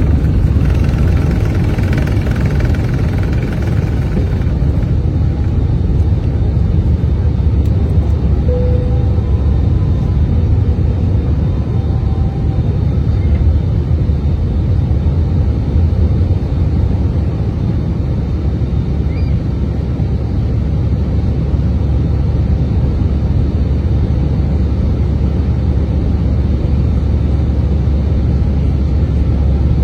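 Steady low rumble of an Airbus A320's engines and airflow, heard inside the passenger cabin. A lighter hiss in the sound fades about four seconds in.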